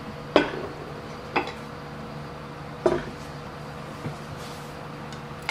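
A glazed clay donabe rice pot and its ceramic lid knocking against wood as the pot is set down on a wooden trivet and the lid is laid on the counter: a few short sharp knocks, the first the loudest, over a steady low hum.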